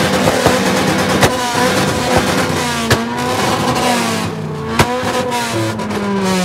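Ford Mustang GT's V8 exhaust held at high revs, with several sharp pops cracking out. Near the end the revs fall away and the note glides down.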